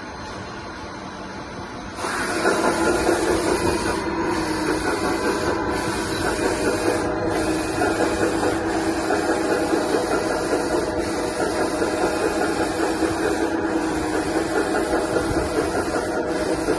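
Electric hydraulic pump and motors of a 1/14 metal RC hydraulic bulldozer whirring, stepping up in level about two seconds in and then running steadily.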